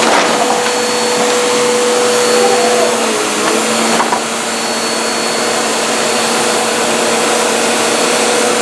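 Upright vacuum cleaner running steadily, a loud even rush of air over a steady motor hum, with a couple of brief clicks from it being pushed about.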